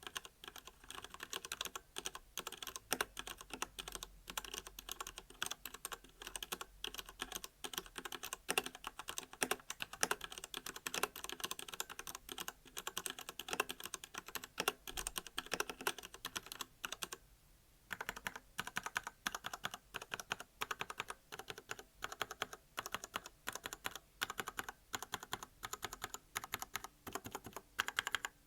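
Fast, continuous typing on a Royal Kludge RK68 mechanical keyboard with red linear switches: a rapid stream of keystroke clacks, broken once by a pause of about a second about two-thirds of the way through.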